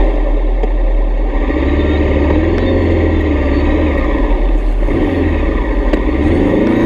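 Honda CB500X's parallel-twin engine running as the bike is ridden slowly away, the engine note rising and easing off and then rising again near the end.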